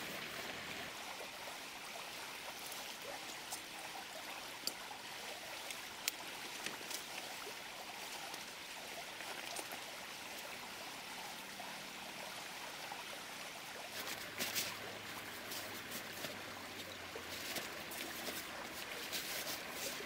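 A stream running steadily, with scattered clicks and rustles that grow thicker about two-thirds of the way in and again near the end.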